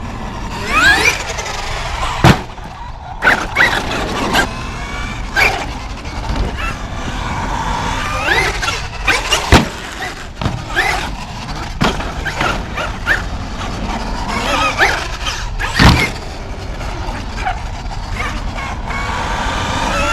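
Large electric RC monster trucks being driven hard, their motors whining up and down in pitch as they accelerate and let off. Several sharp bangs come from landings or impacts, the loudest about 2, 9.5 and 16 seconds in.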